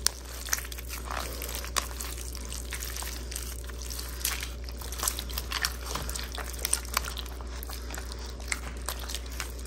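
Gloved hand squeezing and mashing soaked tamarind pulp in a plastic colander, irregular wet squelches and squishes as the pulp is rubbed off the seeds, over a steady low hum.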